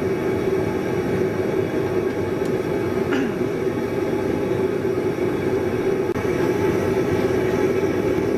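A forge running with a steady, even rushing noise while a wrought iron hammer head heats slowly toward hardening temperature.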